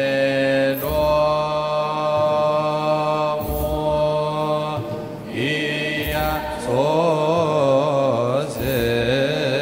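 Choir chanting an Ethiopian Orthodox wereb hymn in long held notes, with a wavering, ornamented phrase past the middle.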